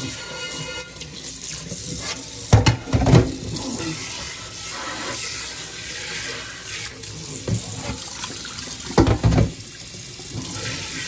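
Kitchen faucet spray running into a cast iron frying pan in a stainless steel sink, rinsing it as the pan fills and splashes. Two louder short clunks come about two and a half seconds in and again near nine seconds.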